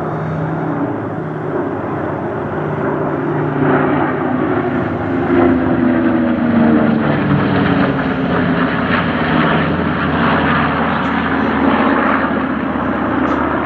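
Piston-engined propeller warbird flying past in an airshow display. The engine note grows louder, then falls in pitch as the aircraft goes by.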